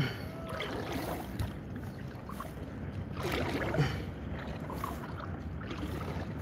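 Kayak paddling: the paddle dipping and pulling through the water in strokes, over a steady low wind rumble on the microphone, with a sharp knock right at the start.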